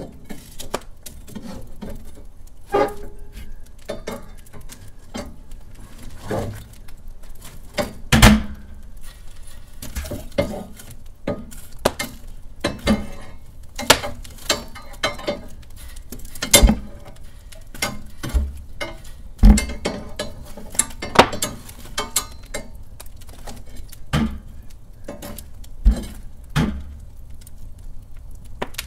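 Wood fire burning in a fireplace hearth, crackling with irregular sharp pops over a low steady rumble.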